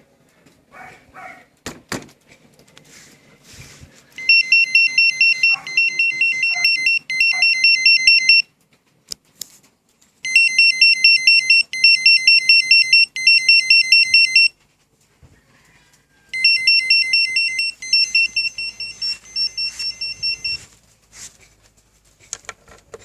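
Winfar two-way motorcycle alarm going off: loud, fast-pulsing electronic beeps at about five a second, in three bursts of about four seconds each with short pauses between. This is the alarm set off as its sensors are tested.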